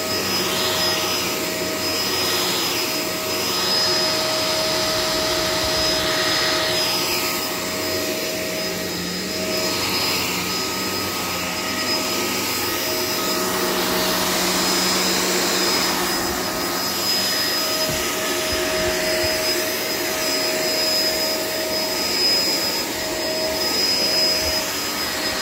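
Shark LA702 Lift-Away upright vacuum running: a steady motor whine over the rush of air, which swells and eases every couple of seconds.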